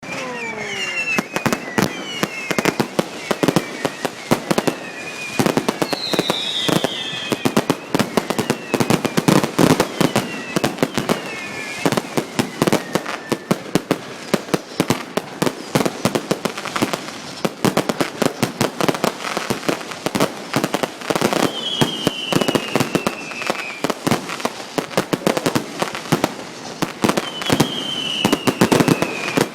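Consumer fireworks going off: a dense, continuous run of cracks and bangs, with several whistles falling in pitch, one about six seconds in and two more near the end.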